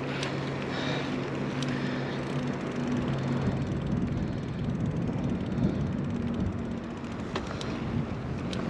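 Mountain bike being ridden: steady tyre rolling noise and wind on the microphone, with a low steady hum over the first few seconds and a few sharp clicks and rattles.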